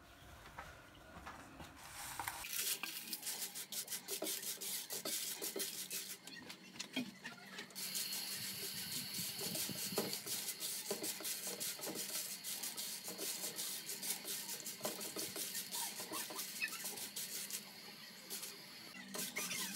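Dried red chillies being stirred and turned in a dry non-stick frying pan with a silicone spatula: a steady dry rustling and crackling of the brittle pods scraping over the pan, starting after a couple of seconds.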